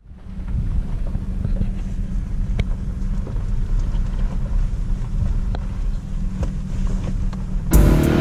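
Low road rumble inside a moving pickup truck's cab, with a few faint clicks and rattles. Near the end it changes suddenly to a much louder rush of wind and dirt bike engine.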